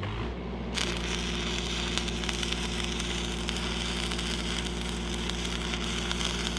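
Stick-welding arc from a 7014 electrode crackling steadily while a tack is laid, starting about a second in. Under it runs the steady drone of a Lincoln SAE-300 engine-driven welding machine.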